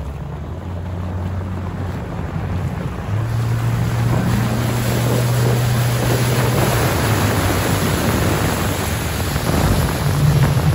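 Motorboat engine running with a steady low hum that gets louder about three seconds in, under wind rushing across the microphone and water splashing.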